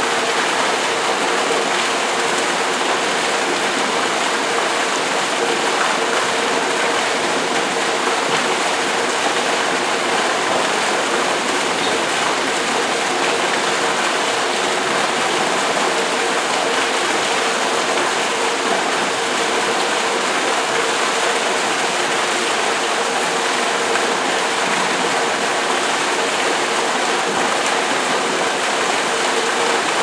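Artificial rock waterfall and cascade pouring steadily into a swimming pool, the water splashing onto the pool surface, with a steady hum running underneath.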